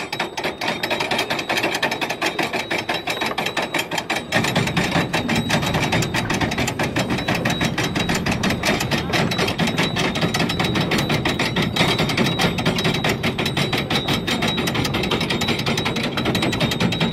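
Hand-cranked mast winch on a skûtsje, its pawl clicking rapidly and steadily as the mainsail is hoisted. The clicking gets louder and fuller about four seconds in.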